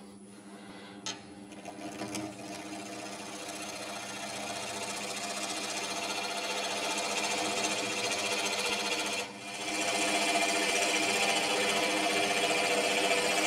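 Wood lathe spinning a cedar of Lebanon cube while a gouge cuts away the waste wood, making a steady, rapid mechanical cutting noise. It builds gradually, breaks off briefly about nine seconds in, and resumes louder.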